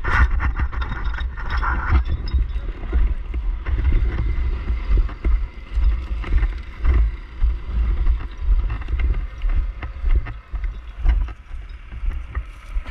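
Wind and handling rumble on a body-worn camera's microphone as a firefighter moves on foot through dry grass, with the thud and rustle of footsteps about once a second and scattered knocks of gear.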